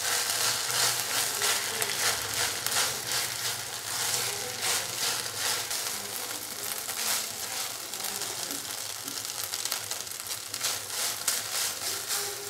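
Shredded chicken and ketchup sizzling in a nonstick frying pan while a silicone spatula stirs and scrapes through it in frequent, uneven strokes over a steady frying hiss.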